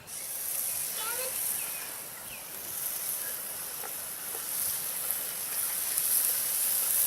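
Bacon sizzling over a campfire: a steady high hiss that starts abruptly, with a few faint ticks.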